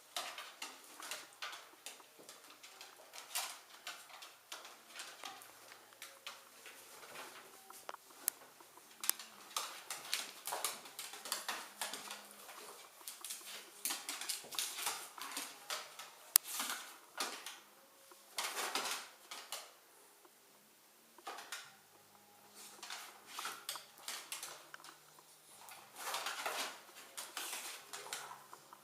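Dogs moving and playing on a hard floor: irregular light clicks, taps and scrabbling rustles, coming in clusters with short lulls.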